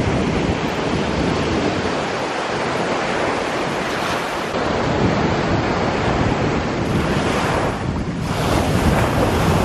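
Surf washing and breaking on the shore, a steady rush of waves with wind buffeting the microphone.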